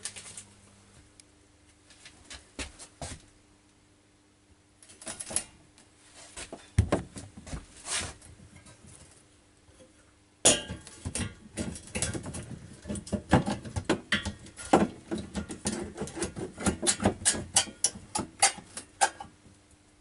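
Hard tools and drill bits being handled and swapped: scattered clicks and knocks, then dense, continuous clattering and rattling from about ten seconds in.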